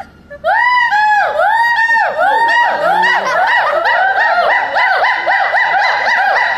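A pair of hoolock gibbons calling. A loud series of whooping notes starts about half a second in, then speeds up into a fast, overlapping chorus.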